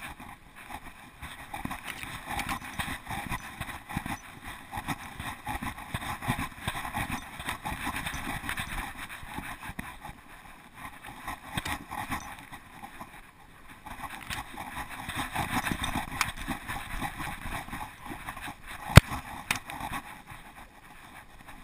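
Rustling and scraping of a GoPro strapped to a moving dog, with many small knocks and one sharp knock a few seconds before the end.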